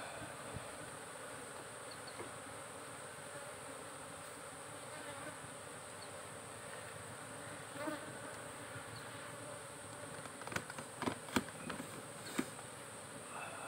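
Asian honeybees (Apis cerana) buzzing steadily around an open wooden hive box. Several sharp knocks and clicks come in the later part as the hive is handled.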